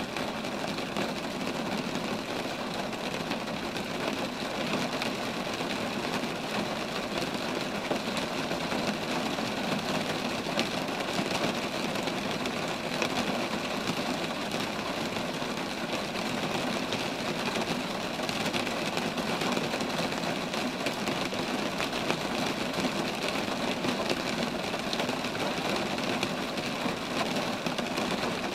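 Steady rain falling on roadside trees, an even unbroken patter.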